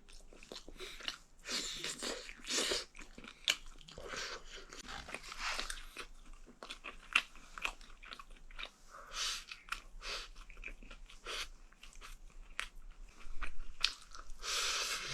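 A person chewing and biting braised chicken pieces close to the microphone, with many small, irregular clicks and crunches.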